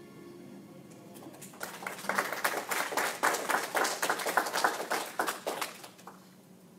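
A small congregation applauding: a few people's scattered handclaps that start about a second and a half in, run for about four seconds and die away.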